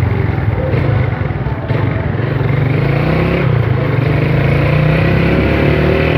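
Single-cylinder engine of a Honda CG Titan motorcycle running under way, heard from the rider's position. Its note dips briefly about a second in, then picks up and rises as the bike accelerates.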